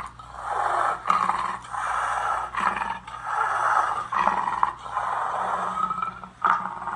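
A crowd cheering and hollering in repeated loud bursts, roughly one a second, as an inductee is called to the floor.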